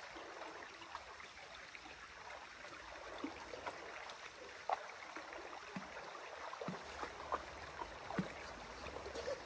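Shallow rocky creek babbling and trickling over stones, with a few short clicks and small splashes scattered through it.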